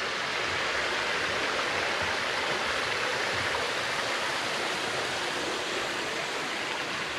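A small stream running, a steady rush of water.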